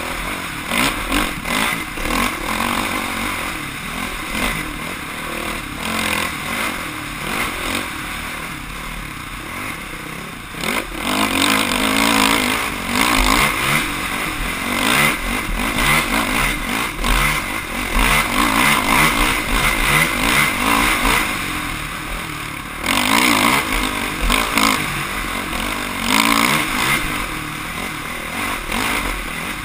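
Off-road motorcycle engine revving up and down as it is ridden hard over trail. The engine note keeps rising and falling, and gets louder from about eleven seconds in.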